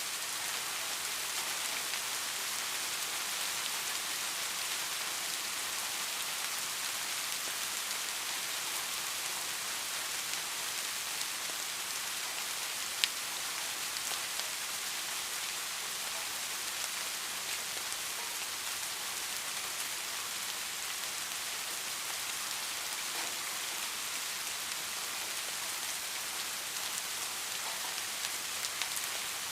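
Steady rain falling, an even hiss dotted with individual drop ticks. A single sharp tick stands out about 13 seconds in.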